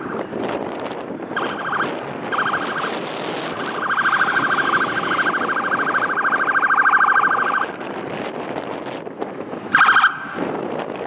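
Fire brush truck's electronic siren sounding a steady, buzzing horn tone: two short blasts, then one long blast of about three and a half seconds, and another short blast near the end, over wind noise on the microphone.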